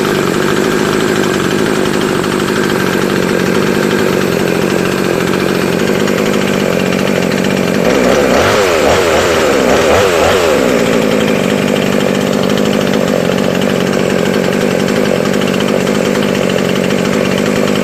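JLD 54.6 cc two-stroke chainsaw running steadily. About eight seconds in, its pitch slides down and climbs back up over some three seconds, a little louder, before settling again.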